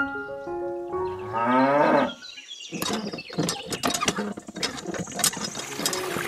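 A cow moo with a rising pitch about a second in, over the tail of background music. From about three seconds in, the wire lever of a miniature homemade hand pump clicks and rattles as it is worked up and down, and water starts pouring from its spout near the end.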